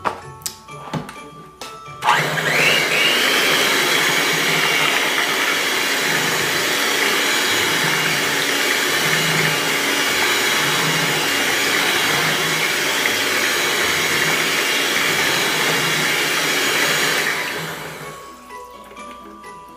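Electric hand mixer switching on about two seconds in, its beaters spinning up with a brief rising whine, then whirring steadily through cassava batter in a stainless steel pot. It switches off near the end and the whir dies away. A few light clicks come just before it starts.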